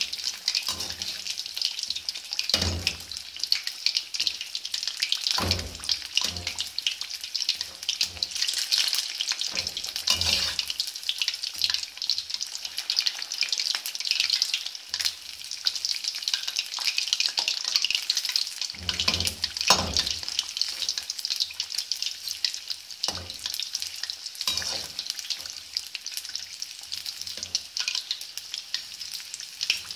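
Battered fish pieces deep-frying in hot oil in an iron karahi, a steady crackling sizzle, with a few dull knocks scattered through as a metal slotted skimmer turns the pieces against the pan.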